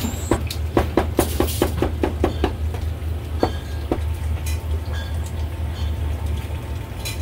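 Cleaver slicing braised beef brisket on a thick wooden chopping block: about ten quick chops in a little over two seconds, then two more single knocks a second or so later, over a steady low rumble.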